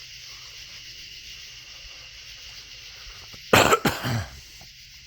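A person coughs and clears their throat once, close to the microphone, about three and a half seconds in. Behind it runs the steady high hiss of night insects.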